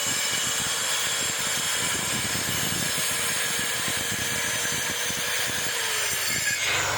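An electric power tool's motor running steadily with a constant whine, then winding down in pitch near the end.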